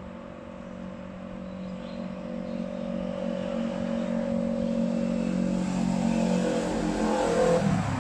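A motorcycle on the road below rides toward the bridge and passes underneath. Its steady engine note grows louder, then drops in pitch near the end as it goes by, with car tyres on the road behind it.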